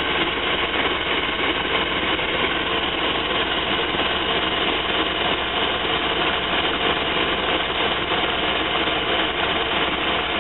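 Van's throttle-body-injected engine idling steadily while it warms up. This is the engine that runs smoothly cold but stalls once it heats up.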